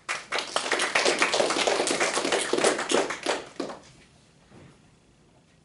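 A group of people clapping by hand: dense applause that fades out after about four seconds.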